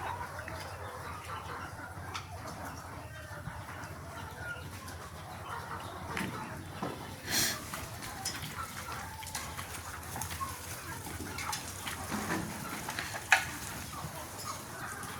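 A flock of Sonali chickens clucking and chirping on and off. A short noisy burst comes about seven seconds in, and a sharp click, the loudest sound, comes near the end.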